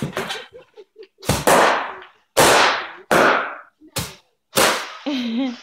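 Large bubble-wrap bubbles bursting under children's hands and feet: a run of loud, sharp pops, about seven, coming singly or in quick pairs roughly a second apart.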